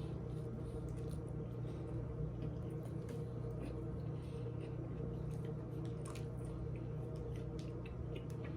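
Faint wet chewing of a mouthful of sandwich: small squishy mouth clicks scattered over a steady low hum.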